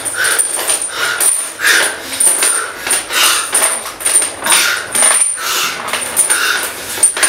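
Harsh, rasping panting growls from a zombie, at a fast rhythm of about two breaths a second.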